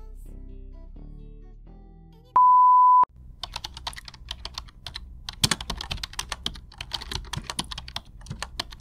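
The last notes of a hip-hop/R&B track fade out, then a loud, steady, single-pitched beep sounds for well under a second. Rapid computer-keyboard typing follows, a fast irregular clatter of key clicks that keeps going.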